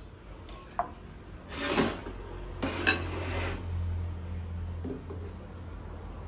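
Metal fork clinking against a glass bowl and a small pan as instant noodles are stirred and lifted from the cooking water: a sharp clink with a short ring in the first second, then two stretches of scraping.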